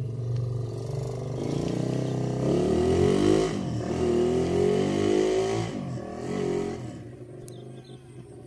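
Engine of a motor vehicle passing close by, growing louder to a peak about three seconds in, shifting in pitch as it goes by, then fading away.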